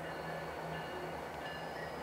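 Diesel locomotive engine running steadily as the yard locomotive moves slowly, a low pulsing hum with a few faint steady high tones above it.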